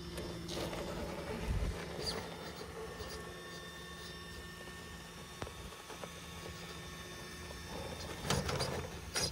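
Axial SCX6 1/6-scale RC rock crawler's electric motor and geared drivetrain whining steadily as it crawls slowly up boulders, with a few faint clicks.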